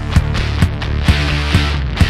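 Background rock music with a steady drum beat, about two hits a second.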